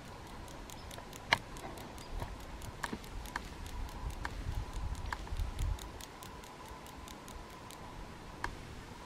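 Faint outdoor ambience of scattered light ticks and clicks, with one sharper click about a second in and a low rumble in the middle.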